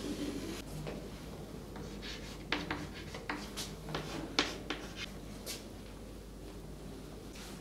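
Chalk on a chalkboard: writing and drawing strokes, with a run of sharp taps and clicks in the middle as labels are written.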